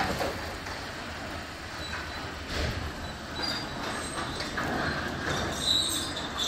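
Working noise of a used-engine yard: a steady mechanical clatter with occasional knocks and brief high metallic squeals. The loudest squeal comes near the end.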